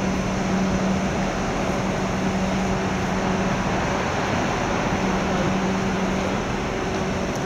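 Steady rumble and hum of electric trains at a railway station, with a low drone that drops out about a second in and comes back around the fifth second.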